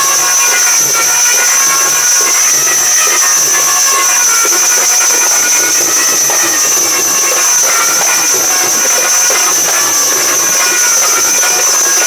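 Loud, steady hiss with a constant high-pitched whine running through it, as from an amplified sound system or recording noise, with faint scattered tones underneath.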